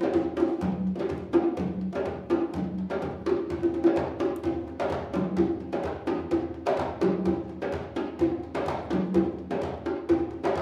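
Congas and djembes played by hand by two drummers in a steady, busy rhythm of many strikes, with a low drum tone and a higher one recurring throughout.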